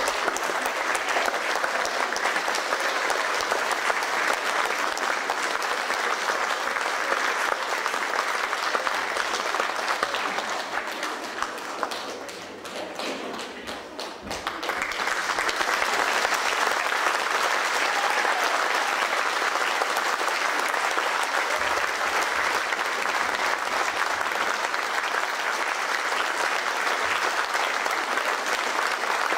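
Theatre audience applauding a curtain call, steady and continuous, fading briefly about halfway through and then coming back.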